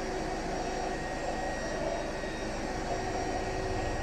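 Steady whooshing hum of a running blower, with a few faint steady tones in it and no change in level.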